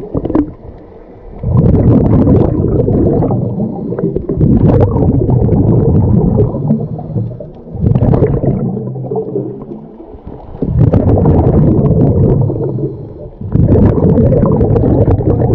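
Scuba diver's exhaled breath bubbling out of the regulator, heard underwater, a rumbling gurgle in surges a few seconds long with short quieter gaps between them while the diver breathes in.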